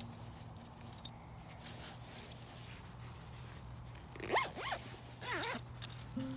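Zip on a British Army jungle sleeping bag pulled in three quick rasping strokes, its pitch swooping up and down with the speed of each pull, about four to five and a half seconds in. Before that, the quiet rustle of the nylon bag being handled.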